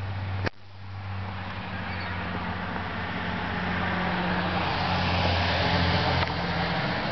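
A car passing on a snowy street: tyre and road noise swelling over several seconds, loudest about five to six seconds in, then easing off.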